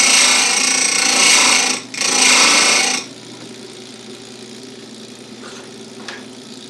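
Electric bench chain sharpener's grinding wheel grinding a full-chisel chainsaw chain cutter, with a short break near two seconds. About three seconds in the grinding stops and the grinder's motor keeps running with a quiet steady hum.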